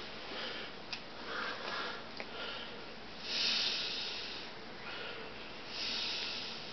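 A person's quiet breaths and sniffs, with two longer hissy breaths about three and a half and six seconds in, and a couple of small clicks early in.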